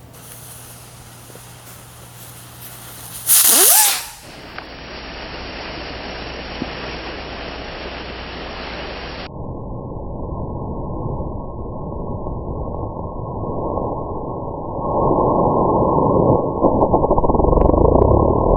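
Jumping jack fireworks fizzing as they spin, heard slowed down as a dull, low hiss. A short loud burst comes about three seconds in, the sound turns duller in two sudden steps around four and nine seconds, and it grows louder from about fifteen seconds.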